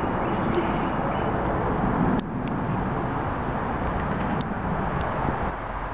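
Steady noise of a twin-engine jet airliner's engines passing overhead, dropping suddenly in level about two seconds in.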